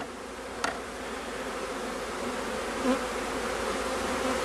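Honeybees from a newly installed package buzzing steadily over the open top of a Langstroth hive, a low even hum that slowly grows louder. A single sharp click sounds about half a second in.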